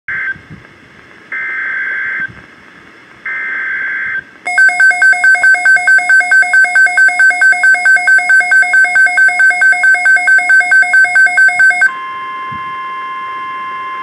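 Midland WR-400 weather radio receiving a NOAA Weather Radio alert for a tornado watch. It opens with three short buzzing bursts of SAME digital header data, then the radio's own alert sounds as rapid pulsing beeps, several a second, for about seven seconds. About twelve seconds in, a single steady tone starts: the weather-radio warning alarm tone.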